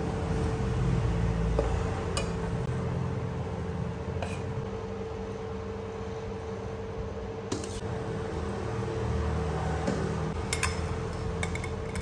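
A wooden spatula and a metal spoon scrape and knock against a nonstick pan while tossing rice noodles, with a few sharp clinks, more of them near the end as vegetables and meat are tipped in from a metal colander. Under it is a steady electric hum from the induction cooktop.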